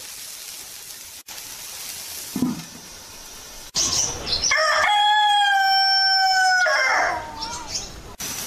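Rooster crowing once: a single cock-a-doodle-doo starting about four seconds in, its long middle note held at a steady pitch for about two seconds before it tails off.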